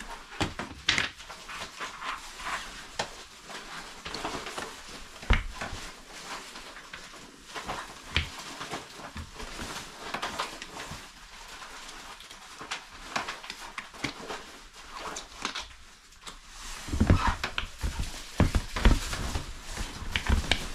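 Rubber ice cleats with metal studs being stretched and pulled over rubber boots: rustling of clothing and rubber with scattered clicks and knocks, one sharp knock about five seconds in. Near the end come several heavy thuds as the wearer stands and steps in the cleated boots.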